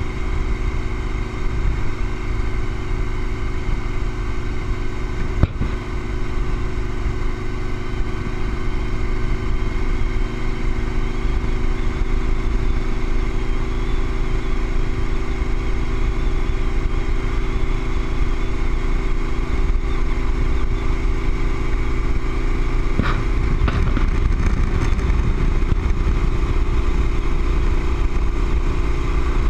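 Touring motorcycle cruising at steady highway speed: an even engine drone under heavy wind rumble on the bike-mounted camera's microphone. A short click about five and a half seconds in.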